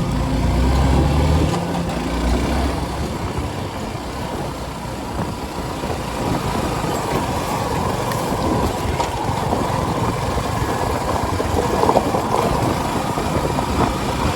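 Motorcycle on the move: a low engine rumble at first, giving way after about two seconds to a steady rush of wind and road noise.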